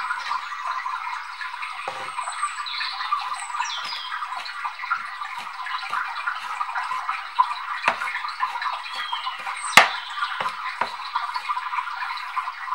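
Kitchen knife chopping wild garlic leaves on a wooden cutting board: a run of light, irregular taps of the blade on the board, with a few louder knocks, over a steady hiss.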